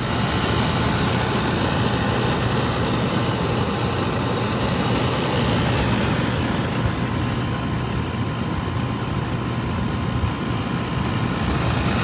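Dometic 13.5K BTU rooftop air conditioner running: a steady rush of its fan with a low hum from the compressor underneath.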